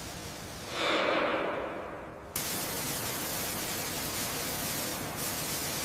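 Hissing noise: a short swell of hiss that fades away, then, about two seconds in, an abrupt switch to a steady, even hiss.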